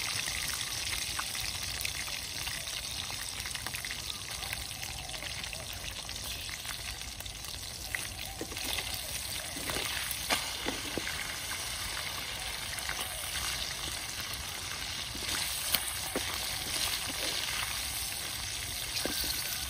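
Spiders frying in hot oil in a small wok, a steady sizzle. From about eight seconds in, a wooden spatula and spoon stir them, adding scattered scrapes and knocks against the pan.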